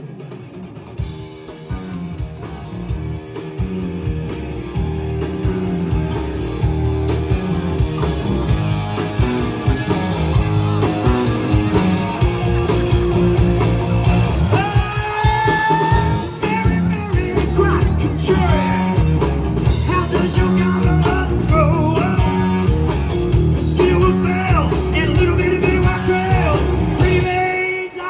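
Live rock band playing: a steady electric bass and drum-kit groove under electric guitar. It builds over the first few seconds, and a bending melody line comes in higher up about halfway through.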